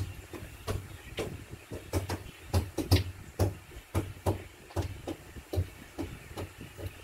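A child beatboxing: a steady rhythmic beat of low kick-like thumps and sharp clicks, about two or three a second.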